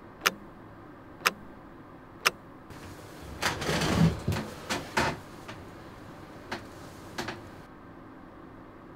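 Three sharp ticks evenly a second apart, then a few seconds of rustling movement with a soft thump, and a few light computer-mouse clicks near the end.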